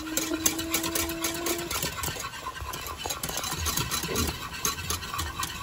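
Stir-fry vegetables sizzling and crackling in a hot nonstick pan as oyster sauce hits them and a wooden spatula turns them, over a steady low hum. A dog's long, slowly rising whine carries on for the first second and a half.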